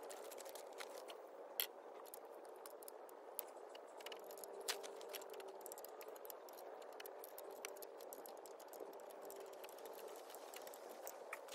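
Faint scattered clicks and light rattles of hands working on small metal parts of a tractor, with a few sharper clicks about a second and a half in and again near five seconds.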